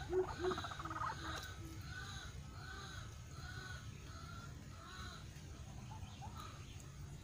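White-breasted waterhen calling in a steady repeated series. A quick run of low notes in the first second or so gives way to arched call notes about twice a second, which fade out near the end.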